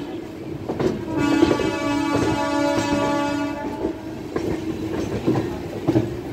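Indian Railways locomotive horn sounding one long blast, starting about a second in and stopping about halfway through, as the express train departs. After the horn stops, the wheels clatter over the rail joints.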